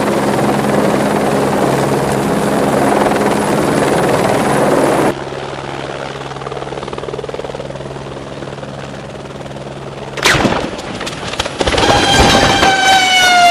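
Helicopter hovering with steady rotor and turbine noise. About ten seconds in, a sudden loud crash with clattering impacts as it hits the ground. Near the end, a loud tone that slowly falls in pitch.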